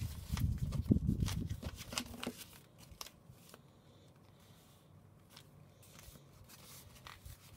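A4 paper rustling and crinkling as it is folded and creased by hand, with knocks on the desk. The handling is busiest in the first two seconds or so, then thins to scattered small clicks.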